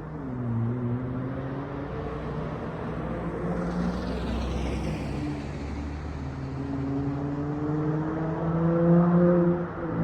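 Dodge Charger SXT's V6 exhaust through straight-through Flowmaster Outlaw mufflers, the engine note drifting up and down, then climbing and getting louder about nine seconds in before briefly dropping off near the end.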